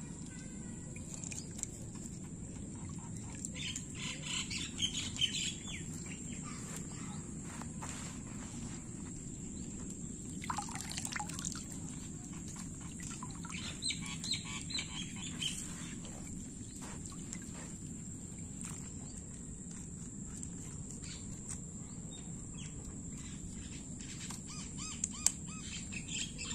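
Outdoor rural ambience with birds chirping and calling now and then, one call falling in pitch about ten seconds in, over a constant high-pitched whine and a steady low background noise.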